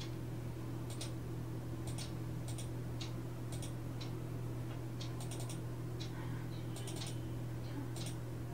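Computer keyboard keystrokes: single clicks and quick runs of two or three at irregular spacing, over a steady low hum.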